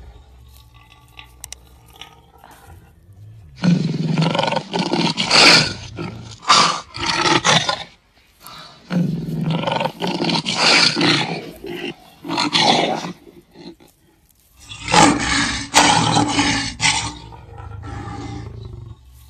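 A male lion roaring in three loud bouts, each a run of repeated calls. The first starts about four seconds in, with short pauses between bouts, and the last trails off quieter near the end.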